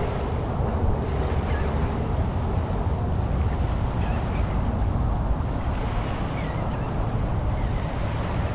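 Steady wind rumbling on the microphone over small waves lapping on a sandy shore.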